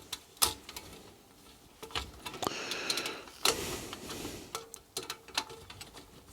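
Spoke key turning the spoke nipples of a mountain bike wheel to tighten the spokes: irregular small metal clicks and ticks, with a brief thin creaking squeal in the middle as the spokes take up tension.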